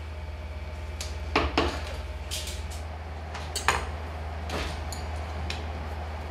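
Workshop room sound: a steady low hum with scattered light clicks and clinks of small tools and items handled at the work tables.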